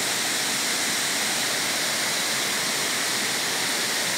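Pongour Falls, a broad multi-tiered waterfall, pouring down in a steady, even rush of water.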